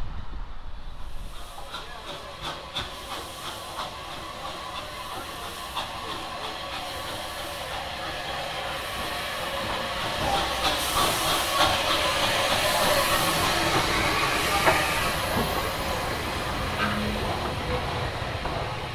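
A steam train passing: the wheels click over the rail joints over a steady hiss of steam. It builds to its loudest about two-thirds of the way through, then fades a little.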